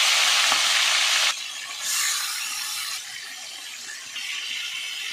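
Marinated squid pieces sizzling in hot oil in an aluminium kadai, loud at first, then dropping suddenly to a quieter, steady fry about a second in.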